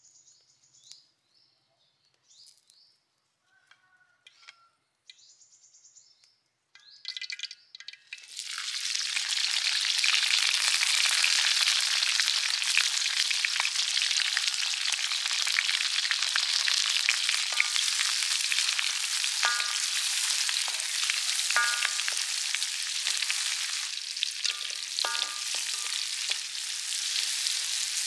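Chopped spring onion, red chilli and greens sizzling loudly in hot oil in a metal wok over a wood fire, starting about eight seconds in, with the spatula clicking and scraping against the pan as they are stirred.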